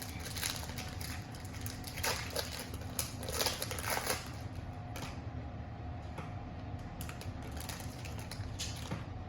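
Topps Chrome trading-card pack being torn open, its foil wrapper crinkling and crackling in a run of rustles over the first four seconds or so, then a few light ticks as the cards are handled.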